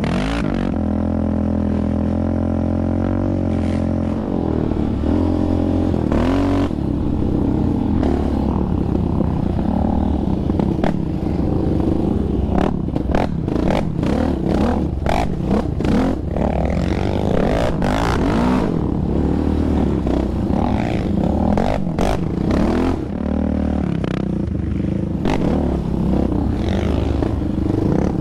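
Yamaha Raptor 700R sport ATV's single-cylinder engine running along a dirt trail, its pitch rising and falling over and over as it revs and backs off. Frequent clicks, knocks and rattles from the machine and the rough trail run through it.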